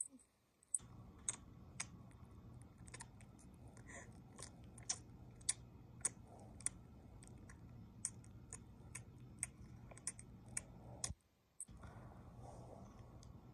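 Faint, irregular sharp clicks and taps, a few a second, over a steady low hum. Everything cuts out briefly near the end, then resumes.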